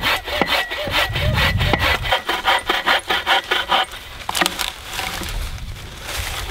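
Bow saw cutting through a log with quick, even push-pull strokes, about five a second, stopping about four seconds in. A knock or two of wood and rustling follow.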